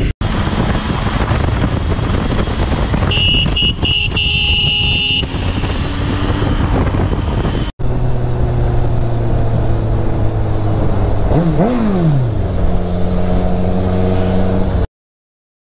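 Motorcycle riding in traffic: the engine running under heavy wind noise on the bike's camera microphone, with a high steady tone lasting about two seconds a few seconds in. The sound drops out briefly about eight seconds in, then a motorcycle engine runs steadily, its pitch briefly rising and falling, and the sound cuts off abruptly near the end.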